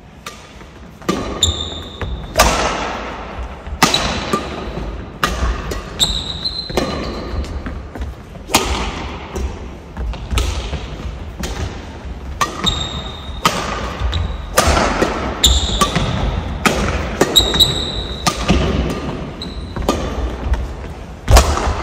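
Badminton rally: rackets striking the shuttlecock about once a second, with short high squeaks from shoes on the court floor between hits.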